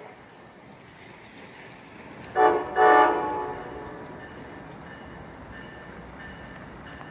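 Approaching passenger train sounding its horn: two chord blasts about two and a half seconds in, the second longer, over the steady rumble of the train coming in.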